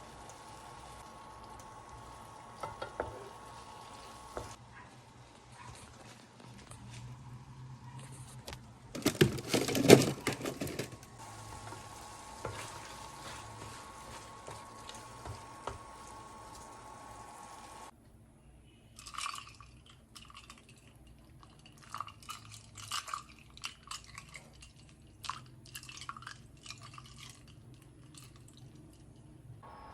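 Kitchen handling sounds: dishes and utensils clinking over a steady background hum, with a loud burst of clattering about ten seconds in. After an abrupt change partway through, there are lighter, scattered clinks of utensils against dishes.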